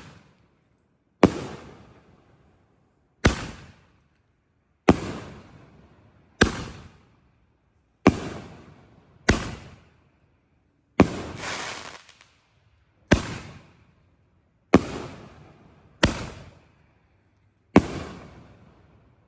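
Canister shell fireworks being fired and bursting in a run: eleven sharp bangs, one every second and a half to two seconds, each trailing off over about a second. The bang about halfway through has a longer tail.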